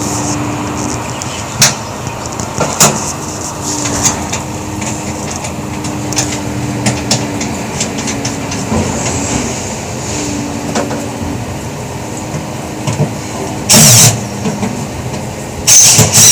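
A neighbour's electric drill on an apartment balcony. Under a low, intermittent hum with scattered clicks, it fires in two short, very loud bursts near the end.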